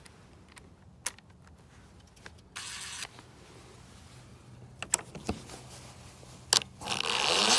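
A few sharp clicks and taps as the screw extractor bit is set into the stripped screw head, then near the end a cordless drill starts and runs under load, its pitch wavering, as the extractor bites and backs the screw out.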